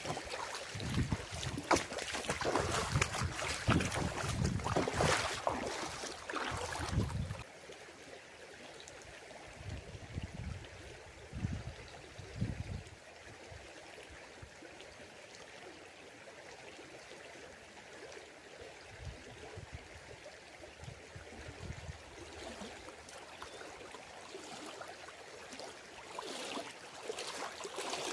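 A stream rushing over its bed, with wind buffeting the microphone. The gusty, louder noise drops suddenly about seven seconds in to a quieter, steady rush with a few brief gusts, and it swells again near the end.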